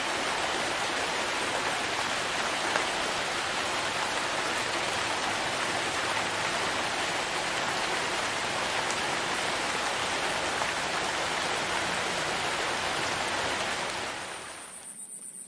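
Steady heavy rain falling, an even hiss that fades out near the end.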